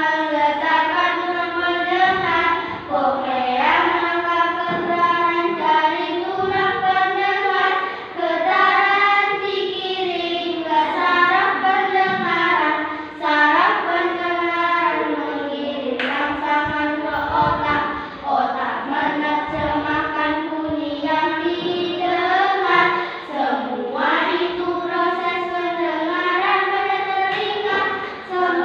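Children's voices singing a song together as one melody, phrase after phrase with short breaths between.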